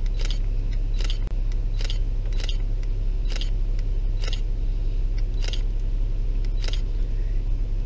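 A camera shutter clicking again and again at uneven intervals, roughly every half second to a second, over a steady low hum.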